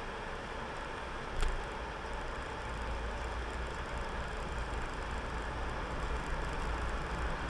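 Steady road noise from a car's tyres on wet tarmac and its engine, heard from inside the cabin, with a single sharp click about a second and a half in.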